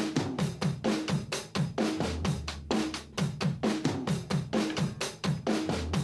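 Background music: a drum kit playing a fast, steady beat on its own, with kick, snare and cymbals.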